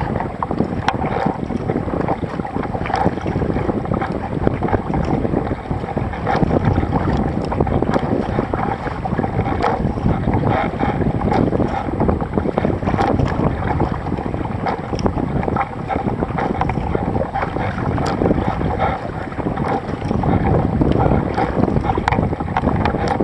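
Wind rumbling on the microphone of a deck-mounted camera over the splash and wash of water as a sea kayak is paddled, with scattered small ticks throughout.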